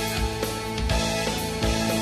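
Instrumental background music with a steady drum beat and held pitched tones.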